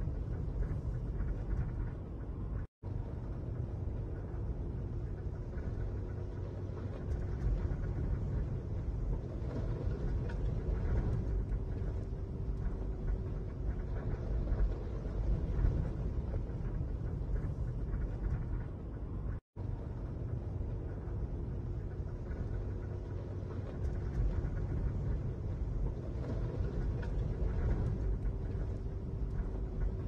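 Strong thunderstorm wind gusting and buffeting, heard from inside a vehicle as a deep, uneven rumble, with a faint steady hum beneath it. The sound drops out to silence briefly twice, about three seconds in and again near the middle.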